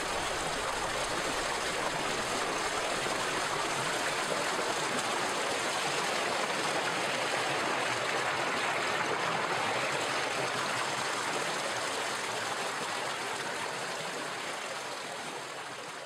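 Shallow creek water rushing and splashing over rocks in a small cascade, a steady even rush that slowly fades out over the last few seconds.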